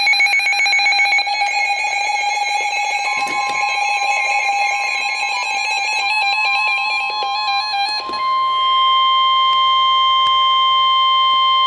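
Emergency alert broadcast tones: buzzing, rapidly warbling electronic tones for about eight seconds. About three seconds in, a single steady alarm tone joins them and then carries on alone, unchanging, once the warbling stops. The steady tone is the NOAA Weather Radio warning alarm tone that signals an urgent warning, here a severe thunderstorm warning.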